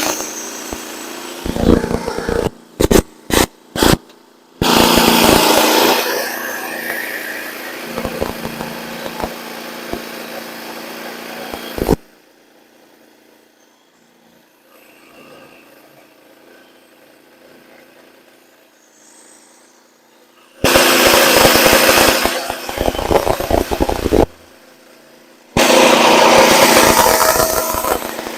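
Frontier portable band sawmill running under load, its small engine driving a freshly fitted blade through a log. The sound cuts in and out abruptly several times, with a long drop-out in the middle, from a faulty microphone.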